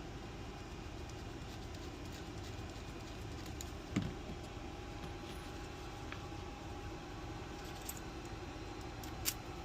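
Small metal parts of a Schlage lock cylinder and a locksmith's pick tool being handled during a rekey, with faint scattered clicks over a steady background hum. There is a soft knock about four seconds in and a sharp click near the end.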